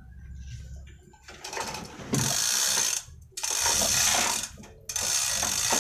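Manual chain hoist being worked while it holds a truck diesel engine, its chain clattering through in three long spells of a second or so each.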